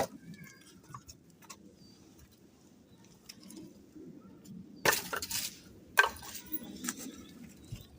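Camp cookware and utensils clinking and clattering, with scattered small clicks and two louder clattering bursts about five and six seconds in.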